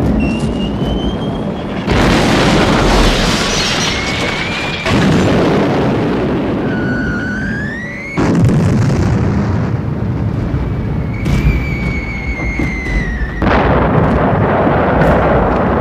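Air-raid sound effects: bombs whistling as they fall, then exploding with heavy blasts over a continuous rumble. There are about four sudden blasts, the loudest about eight and thirteen seconds in, each right after a gliding whistle.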